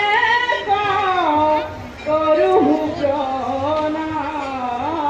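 Women singing Assamese thiyo naam, a devotional chant, together in long held notes that slide up and down in pitch, with a short break between phrases about two seconds in.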